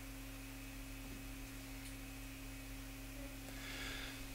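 Quiet room tone under a steady low electrical hum of a few unchanging tones: mains hum in the sound system.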